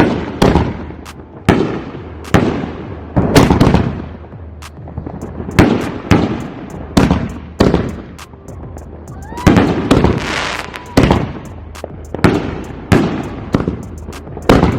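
Consumer aerial fireworks bursting in a rapid string, a sharp boom roughly every second, each with a fading echo. A denser crackling burst comes about ten seconds in.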